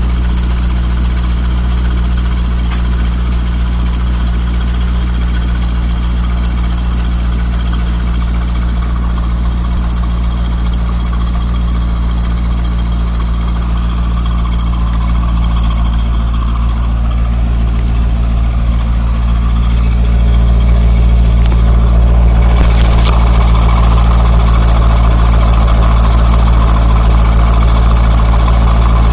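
Corvette V8 idling steadily through its factory exhaust, with a low, even rumble. About two-thirds of the way through it gets noticeably louder and brighter.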